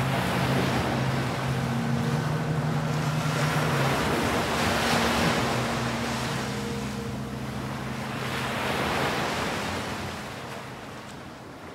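Gentle surf washing up on a sandy beach, each wave swelling and ebbing about every four seconds, fading out near the end.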